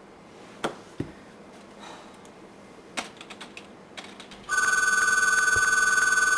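A few sharp clicks and a quick run of light taps, then about four and a half seconds in a telephone starts ringing: one long electronic ring of two steady tones, the loudest sound here.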